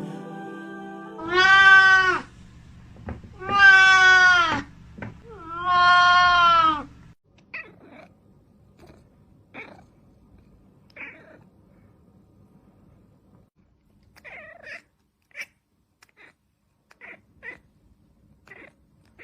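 A domestic cat meowing: three long, loud meows, each about a second long and a second or so apart. These are followed by a string of short, faint meows and chirps.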